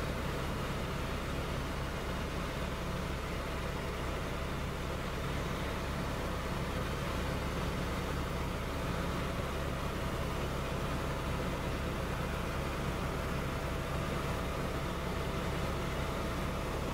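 Helicopter in flight heard from inside its cabin: a steady drone of engine and rotor, with a thin steady tone above it.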